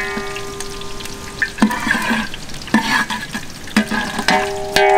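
A metal ladle stirring and scraping through hot oil frying in a large metal cooking pot, about one stroke a second. Knocks of the ladle on the pot leave a ringing metallic tone, loudest near the end.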